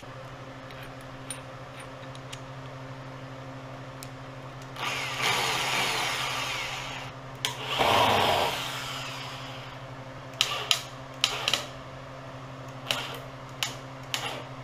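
Corded electric drill driving wood screws into pallet-wood planks: the motor whines up for a couple of seconds about five seconds in, then runs loudest and slows under load around eight seconds. Several sharp clicks and knocks follow near the end, over a steady low hum.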